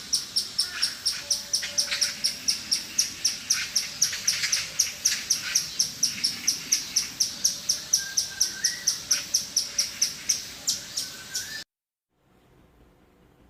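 A squirrel giving high, sharp chirps over and over, about four a second, with a few fainter, lower calls behind them. The chirping cuts off suddenly near the end.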